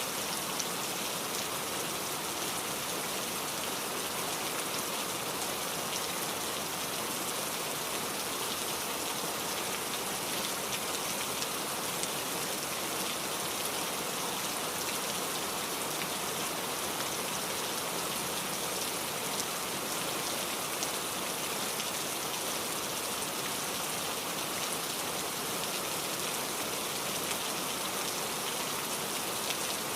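Steady rain falling, a dense even hiss with countless fine drop patters, unchanging throughout.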